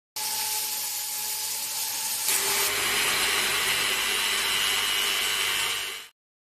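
Mini rotary tool running at speed with a steady motor whine while a mounted grinding stone grinds steel. About two seconds in the sound changes to a harsher, hissier grind as a small stone is run against the tip of a pair of pliers. It cuts off suddenly near the end.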